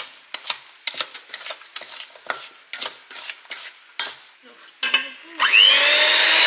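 Irregular clicks and knocks of kitchen utensils against a mixing bowl, two or three a second, then an electric mixer's motor switching on near the end, spinning up with a short rising whine and running steadily through cake batter.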